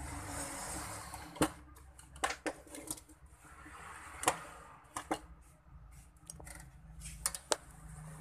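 Sharp plastic clicks and knocks, about nine at uneven intervals, as the Rexus F26 headset's green plastic ear-cup housing parts are handled and pressed together, over a steady low background rumble.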